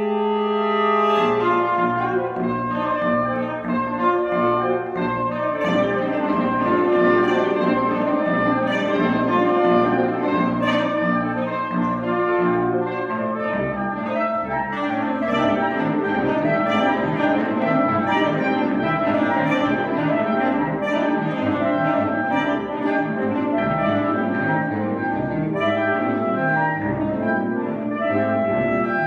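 Saxophone ensemble improvising a soundpainting piece directed by live hand signs. A held chord gives way about a second in to a rhythmic pulsing low figure, with busy overlapping notes above it.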